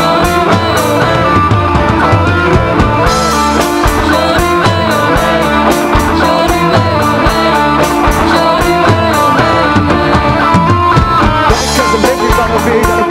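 Live rock band playing loudly, with drum kit and guitar.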